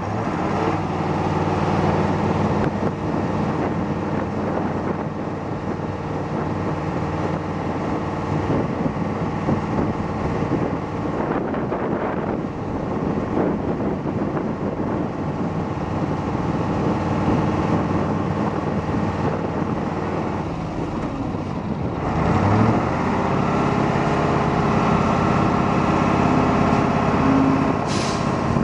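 Eight-cylinder Mercedes diesel engine of a John Deere 350C articulated dump truck running steadily. About 22 seconds in, the engine note rises and gets louder, and it keeps shifting in pitch near the end.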